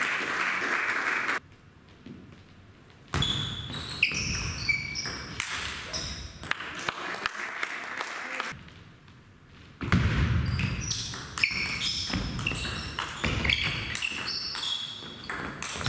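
Table tennis ball clicking rapidly back and forth off bats and table in two fast rallies, each hit with a short high ping, separated by a pause of about a second.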